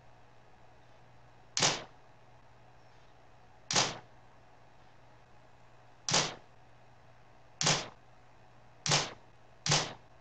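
Canon EOS-1Ds Mark III shutter firing six times at uneven intervals, each a sharp click with a brief tail, the last two close together. Each click is one frame of a focus stack, taken as the focus point moves along the subject.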